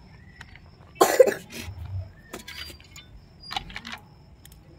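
A person coughs once, sharply, about a second in, followed by a few faint clicks of chopped vegetables being dropped by hand into a steel bowl.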